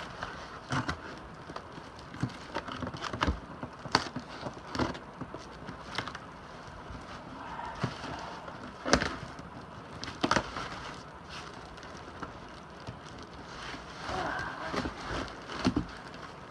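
Cardboard shipping box being opened with a razor blade: irregular sharp clicks, knocks and scrapes of the blade, tape and cardboard flaps, with a stretch of rustling near the end.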